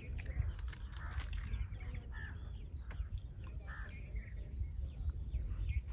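Outdoor field ambience: a steady low wind rumble on the microphone with scattered faint bird chirps.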